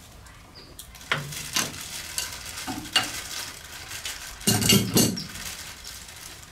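A wrench and loose metal engine parts clinking and clanking against each other as the lock nut and fittings of a steam engine's low-pressure crosshead are worked by hand. There are several separate clinks, with the loudest cluster of clanks about four and a half seconds in.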